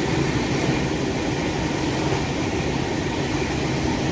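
Track recording car train running along the rails, a steady, even rumble of wheels on track.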